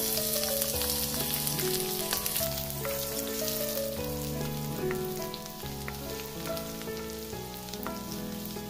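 Chopped garlic sizzling in hot oil in a wok. The sizzle starts suddenly as the garlic hits the oil and slowly eases, with a spatula stirring it and clicking against the pan.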